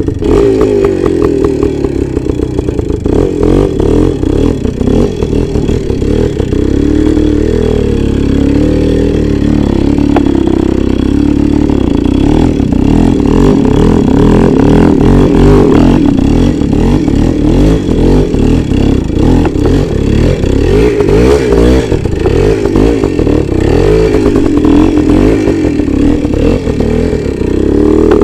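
A small motorcycle's engine running under load off-road, revving up and down with the throttle through mud and water, with its pitch rising and falling throughout.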